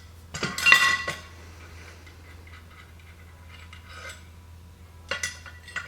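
Steel pallet-jack parts clanking as they are handled: one loud ringing metal clank about half a second in, then fainter metallic clinks around four and five seconds.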